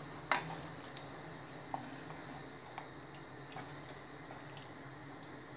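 A wooden spatula stirring okra curry with coconut milk in a clay pot: soft, wet squishing with a few light taps of the spatula against the pot, the sharpest just after the start.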